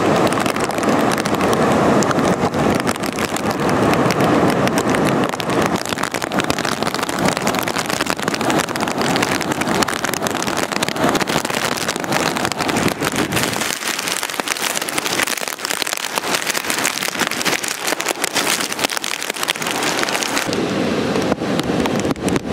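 Strong wind blowing across the microphone over the steady rush of heavy surf breaking on the beach, storm waves driven in ahead of a hurricane.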